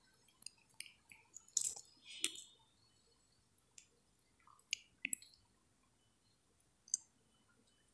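Quiet room tone with about eight faint, sharp clicks scattered irregularly through it.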